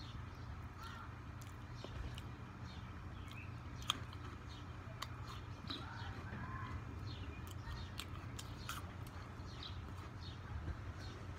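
Birds chirping and calling over a steady low hum, with one sharp click about four seconds in.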